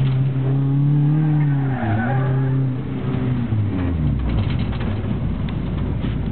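Rally car's engine heard from inside the cabin, held at steady high revs at first, then dropping and falling away to a low idle by about four seconds in as the car slows down, with a few light clicks near the end.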